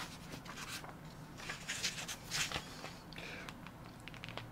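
Faint scattered clicks and light rustles over a low steady hum.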